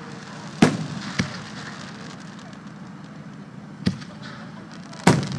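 Aerial fireworks shells bursting: four sharp bangs with crackling between them. The loudest bangs come about half a second in and near the end.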